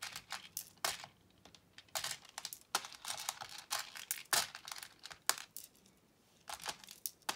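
Transparent plastic pony beads clattering as fingers rake and pick through a loose pile of them on a plastic organizer lid, in irregular bursts of small clicks with a short lull shortly before the end.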